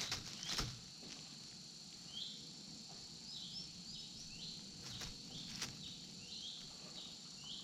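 A young eagle chick giving short, high chirps, about a dozen from about two seconds in, excited at a toad brought to the nest. A steady high insect drone runs underneath, and a few sharp clicks come at the start and about five seconds in.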